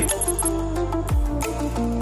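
Background music: held chords over a deep bass that slides down in pitch about a second in.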